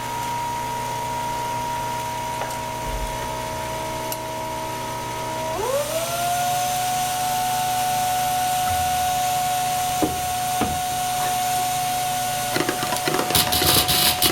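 A small electric motor running with a steady whine, cut briefly about five and a half seconds in and spinning straight back up to a steady speed. A harsh hissing noise joins near the end.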